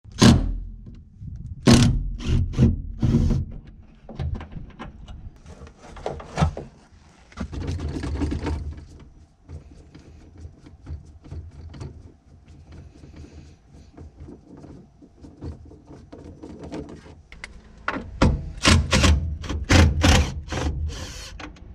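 Hands working the floor gear shift lever and its surrounding trim in a Mazda Scrum truck's cab: scattered knocks, clicks and scrapes of metal and plastic parts, with a quick run of sharp clicks near the end.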